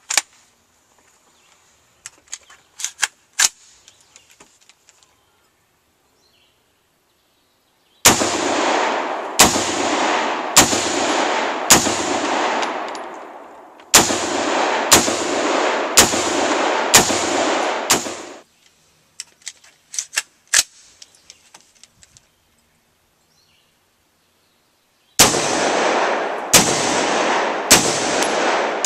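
Adcor Bear Elite 10.5-inch short-barrelled AR-15 (gas piston, 5.56 mm) firing aimed single shots, about one a second, in three strings of four or five shots. Each shot is a sharp crack followed by a long ringing echo, and there are faint clicks between the strings.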